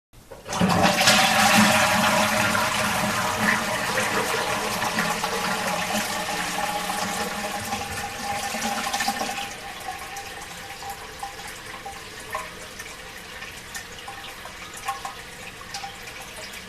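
Toilet flushing: a loud rush of water starts suddenly and slowly fades. About nine seconds in it drops to quieter running water.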